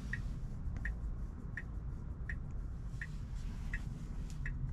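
Tesla Model Y's turn-signal indicator ticking in the cabin, a short click about every 0.7 seconds, over a low steady rumble of cabin road noise.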